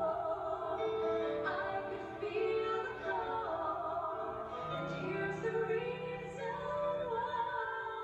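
A women's vocal group singing together into microphones, with musical accompaniment underneath.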